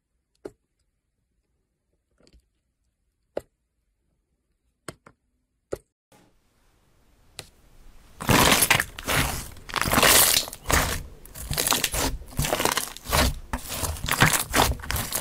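A few sharp, isolated clicks. Then, about eight seconds in, hands pressing and squishing a glossy blue slime set off loud crackling and popping, several bursts a second.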